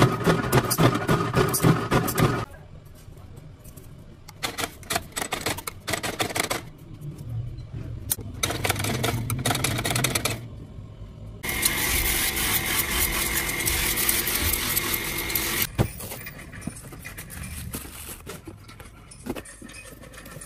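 Factory machinery in turn. A mechanical power press runs with rapid rhythmic strokes for the first two seconds or so. Then come scattered sharp clicks and snaps as a spot welder tacks stainless-steel mesh onto strainer blanks. Then, for about four seconds, a machine runs loudly and steadily with a high whine, and the clicking returns near the end.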